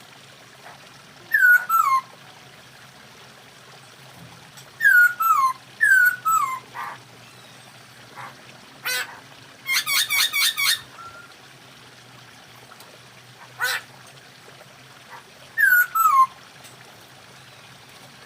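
Poksay hongkong laughingthrush calling: loud, falling two-note whistles, repeated several times with pauses. Near the middle comes a quick run of about six sharp chattering notes, with a few single sharp notes on either side.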